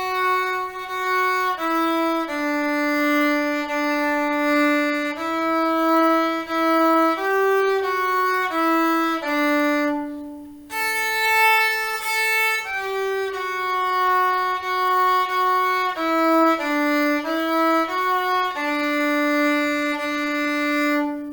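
Solo viola played with the bow, a simple melody of notes about a second each in the range just above middle C. About ten seconds in the tone stops briefly for a bow lift at the end of the first line, then the melody resumes.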